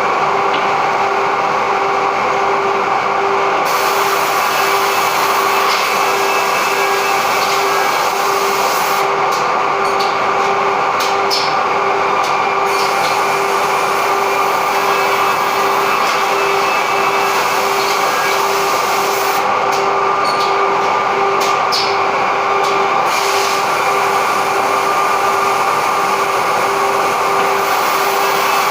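Automatic edge banding machine running, its motors giving a steady hum with a constant whine. Two spells of short clicks and ticks come through, about a third and two thirds of the way in.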